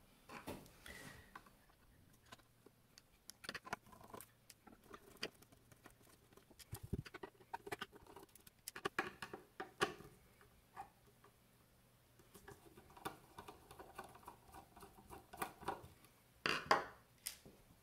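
Scattered light clicks, taps and scrapes as the metal case and cover panel of an avionics control display unit are handled and the panel is worked free and lifted off. A louder clatter comes near the end.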